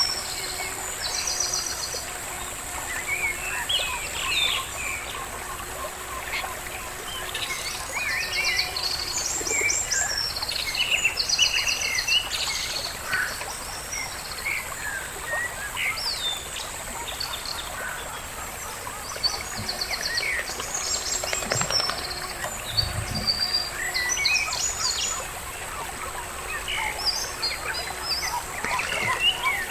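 Many small birds chirping and singing, with short trills and quick runs of notes, over a steady background hiss.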